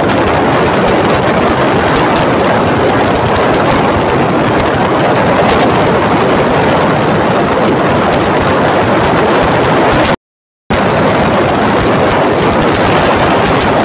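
Loud, steady rush of wind over the microphone mixed with motorcycle engine and road noise while riding. The sound cuts out completely for about half a second roughly ten seconds in.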